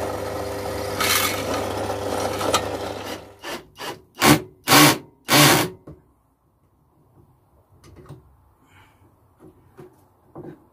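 Bench drill press running, its bit cutting through a steel bar, with the motor hum stopping about three seconds in. About five loud knocks follow, then faint handling sounds.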